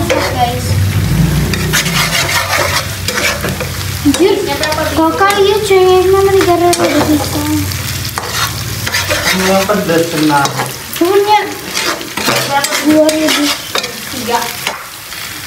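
Chopped vegetables sizzling in hot oil in a non-stick wok, stirred and scraped with a nylon slotted spatula, with many small clicks of the spatula against the pan. A wavering hum comes and goes over the frying.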